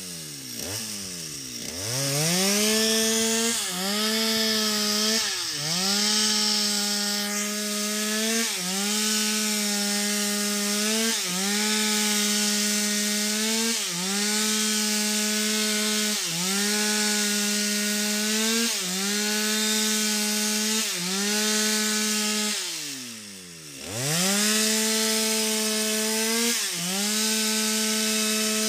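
Stihl MS 250 two-stroke chainsaw running at full throttle while cutting into a sengon trunk. The engine note sags and recovers every two to three seconds as the bar works through the wood. It revs up from low about a second in, and drops briefly toward idle about 23 seconds in before revving back up.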